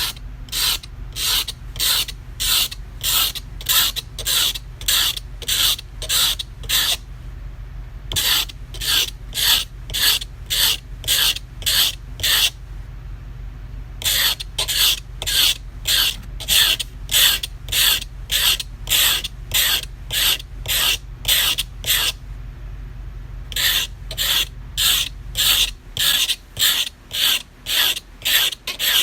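Carving-knife blade rubbed back and forth by hand on 220-grit sandpaper glued to a plywood board, about two rasping strokes a second in runs with short pauses between. The back edge is being ground down to form a new point on a broken tip.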